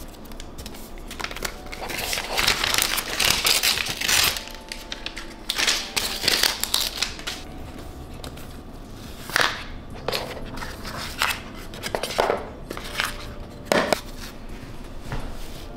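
Rustling and crinkling as AirPods Max headphones and their soft Smart Case are unpacked and handled, followed by several short, sharp handling noises in the second half as the case is taken off.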